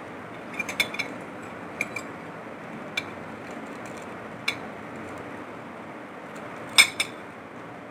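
Metal fork and spoon clinking against a ceramic plate while a fried bread patty is broken apart: a scatter of sharp clinks, the loudest two close together near the end, over a steady faint hiss.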